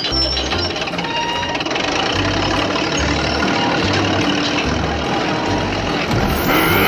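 Heavy construction-machine engine running steadily, a dubbed engine sound effect, with deep low pulses changing about once a second. Near the end a short wavering call rises and falls over it.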